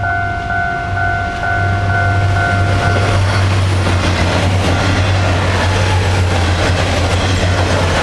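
Level-crossing warning signal dinging in steady pulses, about two a second, as a six-car DR3000 diesel multiple unit approaches. From about three seconds in, the train's passing takes over: wheels clattering over the rails and a low diesel hum, which cover the signal.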